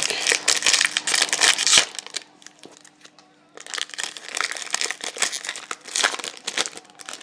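A trading-card pack wrapper being torn open and crinkled, in two spells of crackling with a short pause between them.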